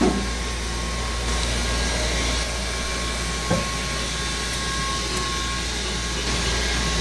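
Stairlift motor and drive running steadily as the chair travels down its rail: a constant hum with a thin high whine, and a single click about three and a half seconds in.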